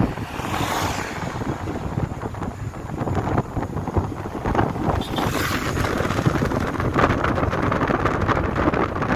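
Wind buffeting a phone's microphone from a moving vehicle, a rough, steady rush mixed with road noise, swelling briefly near the start and again about five seconds in.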